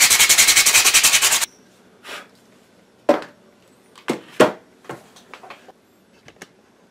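Hand sanding of a unicycle's metal pedal with an abrasive sheet: fast back-and-forth rubbing strokes, about eight a second, that stop suddenly about a second and a half in. Then a few separate knocks and clatters as the pedal and tools are set down on a wooden desk.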